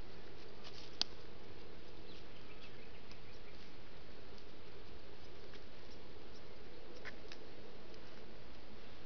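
Steady hiss from a trail camera's microphone, with a few faint sharp clicks and ticks. The clearest click comes about a second in and a pair comes near the end, as sambar deer move about on the forest floor.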